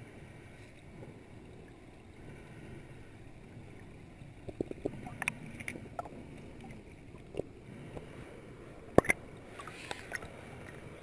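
Stream current heard underwater as a steady muffled low rush, with a few sharp clicks and knocks from about four seconds in as river stones are shifted by hand.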